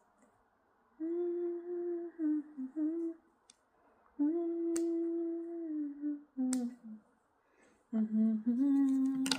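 A woman humming a tune in three phrases of long held notes, with a few light clicks between them.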